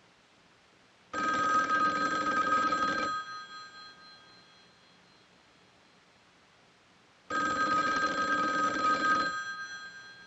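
Telephone bell ringing twice, each ring about two seconds long with a fast trill, about four seconds apart.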